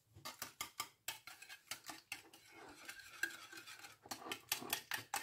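A metal wire whisk beats egg and Greek yogurt in a ceramic bowl, its wires clicking against the dish. The strokes are scattered at first, then come quick and even, about five a second, from about four seconds in.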